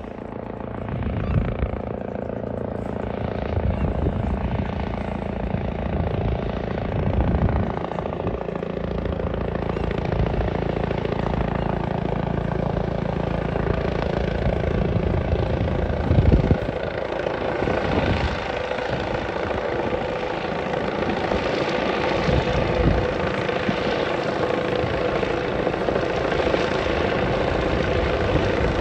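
Steam locomotive 61306 Mayflower, an LNER B1, and its train running past under an open regulator: a loud, continuous pulsing rumble of exhaust beats and rolling stock, with a steady tone that grows stronger in the second half.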